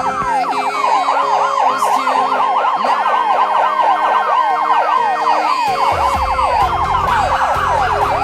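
Fire engine siren on yelp, sweeping rapidly up and down several times a second, layered with steady lower tones from its Federal Q and air horns; the low end grows heavier about six seconds in.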